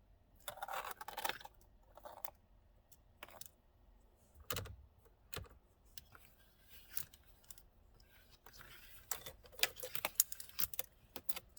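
Small metal parts and hand tools being handled: irregular clicks, rattles and short jangles, with busy clusters near the start and again near the end.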